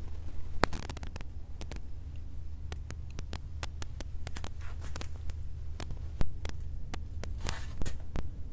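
Scattered sharp clicks and taps at irregular spacing, several a second at times, over a steady low hum.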